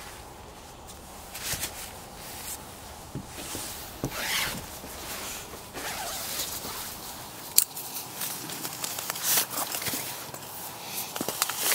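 Irregular rustling, swishing and sharp clicks of camping gear being handled, in short uneven strokes with a sharper click about halfway through.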